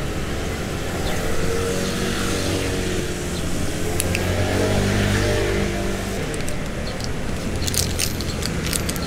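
Street traffic: a motor vehicle's engine passes close by, its hum swelling and bending in pitch over a few seconds, then fading. A few sharp clicks follow near the end.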